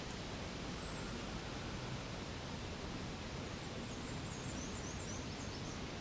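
Steady outdoor background hiss with faint high bird calls: a short falling whistle about half a second in, then a quick run of descending chirps around four to five seconds in.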